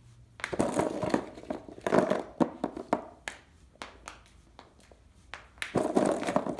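Small plastic wiffle balls being caught in a gloved hand and dropped onto carpet: light sharp taps between three bursts of rustling.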